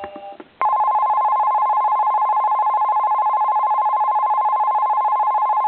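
Keihin-Tohoku Line alarm clock sounding its recorded Ueno Station platform 1 departure bell: an electric bell ringing continuously with very rapid strikes. It starts about half a second in and cuts off suddenly near the end.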